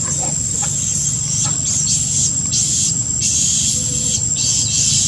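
Insects calling in pulsing bursts of high buzzing that start and stop every second or so, over a steady high-pitched whine, with a low steady rumble underneath.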